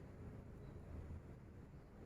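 Near silence: faint low room rumble.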